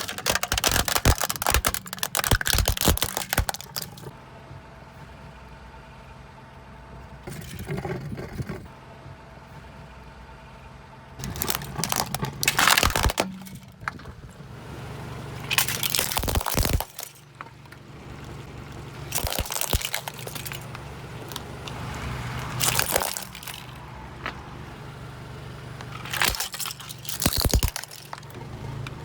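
A car's tyres rolling over and crushing crunchy objects in about seven separate bouts of crackling and cracking, with the car's engine humming steadily underneath.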